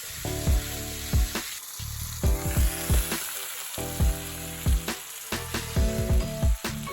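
Steak frying in a skillet with a steady sizzling hiss, under background music with a regular bass beat.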